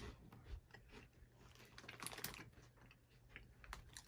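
Faint chewing with scattered small crunches, a mouthful of crunchy savory snack balls being eaten.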